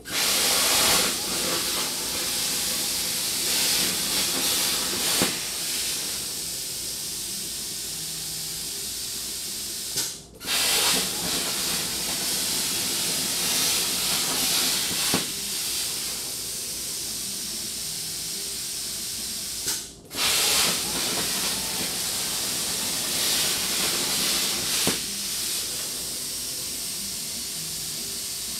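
Hypertherm plasma cutter's torch cutting sheet metal on a CNC table: a loud, steady hiss of the arc and cutting air that starts abruptly and twice cuts out for a moment, about ten seconds in and again near twenty seconds, before it starts again.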